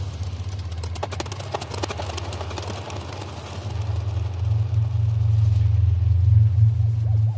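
Ambient soundtrack of a low, droning rumble, with a patter of clicks in the first few seconds; the drone swells louder about halfway through.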